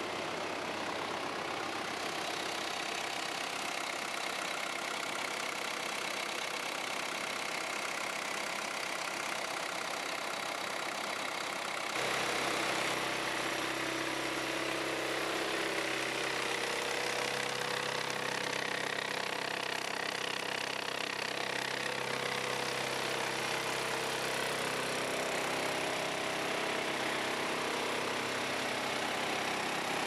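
Volvo BL61 backhoe loader's diesel engine idling steadily. About twelve seconds in, the sound changes abruptly and gets a little louder, with a stronger low hum.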